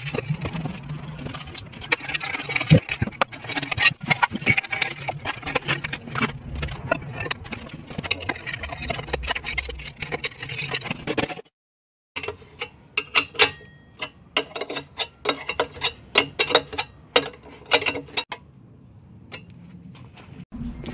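Metal parts clinking and knocking as a turbocharger's downpipe and V-band clamp are fitted by hand: a dense run of knocks and rattles for the first half. After a short break it becomes a string of sharper, separate clicks, which tail off near the end.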